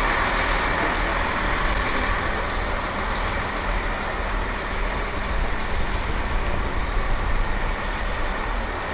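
Class 158 Express Sprinter diesel multiple unit moving slowly over the track, its diesel engines running steadily under the rumble of its wheels on the rails.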